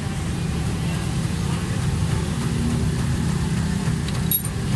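A motor vehicle engine idling steadily, a low even rumble, with one sharp click near the end.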